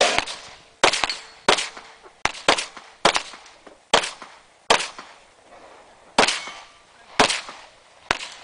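1911-style pistol firing a string of about a dozen shots in singles and quick pairs, with pauses of up to a second and a half between them; each crack is followed by a short echo.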